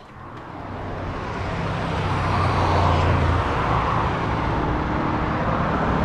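Road traffic on a multi-lane street: cars and engines passing in a steady wash of noise, growing louder over the first couple of seconds as a window is opened onto it.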